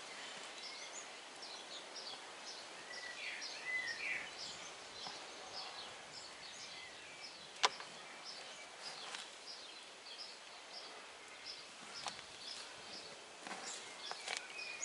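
Many short, high bird chirps, with a couple of lower warbling calls early on, over soft rustling and scraping of a hand digging through potting mix in a plastic wheelbarrow. One sharp click about halfway through.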